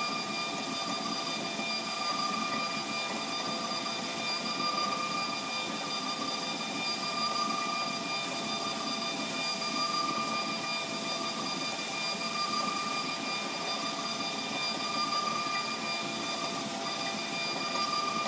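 Wood lathe running steadily, a continuous whine made of several fixed tones over a hiss, as the large spinning workpiece is sanded by hand.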